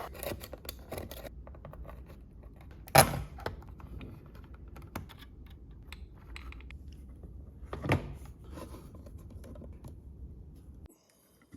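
Scattered light clicks and taps, with two louder knocks about three and eight seconds in, over a steady low hum that cuts off near the end.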